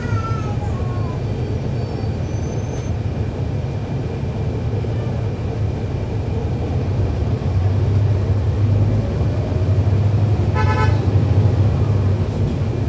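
Cummins ISL9 diesel engine of a NABI 40-foot transit bus, heard from on board, running with a steady low drone that grows louder about seven seconds in. A brief high beep sounds once, about ten and a half seconds in.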